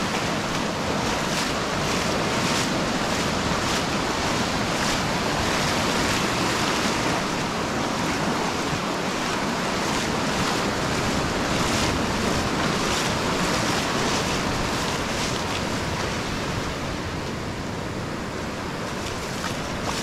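Small waves breaking and washing up over a sandy beach in a steady rush of surf, with wind buffeting the microphone.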